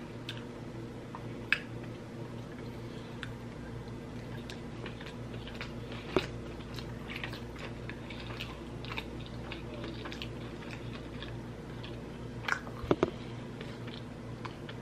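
Close-miked chewing and mouth sounds of a person eating sushi, over a steady low hum. A few sharp clicks stand out, with a short cluster of them near the end.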